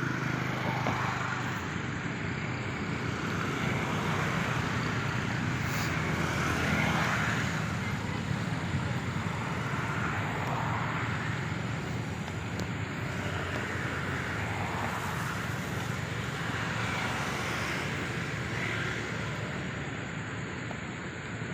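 Steady outdoor background noise with a low rumble and slow swells, like distant engine or traffic noise.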